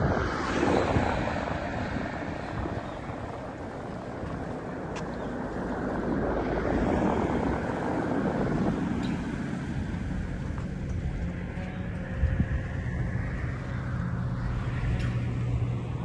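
Wind gusting over the microphone in open-air ambience, with a low engine drone that comes in about halfway through and holds steady.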